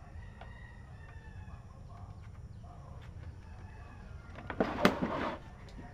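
Faint rooster crowing and chicken calls in the background, then a loud clatter of several knocks about four and a half seconds in as hands grip and shift the plastic cabinet of a CRT television.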